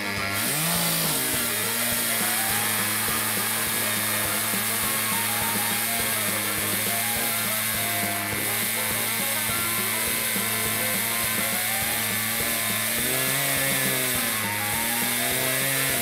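Chainsaw running steadily under load as it rips lengthwise through a log, guided along a home-made milling jig, its pitch shifting briefly near the start and again near the end.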